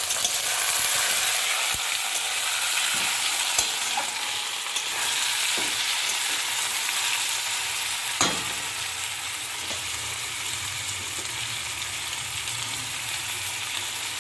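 Chopped tomato sizzling in hot oil with fried onion and ginger, garlic and green chilli paste in a pan, stirred with a spatula that knocks against the pan now and then. The sizzle is strongest in the first few seconds.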